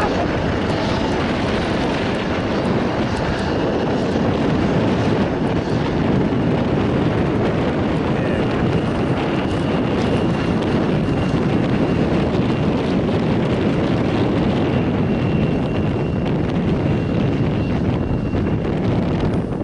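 Jet airliner engines running, a steady rushing noise with a faint high whine joining about eight seconds in and fading near the end.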